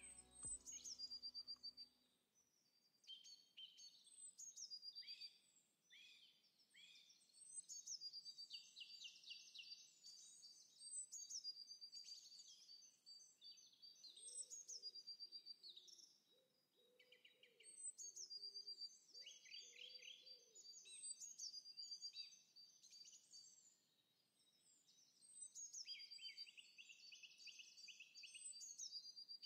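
Background music ends about two seconds in, leaving wild songbirds singing. Their phrases repeat every few seconds: high falling notes, quick runs of repeated chirps and short trills.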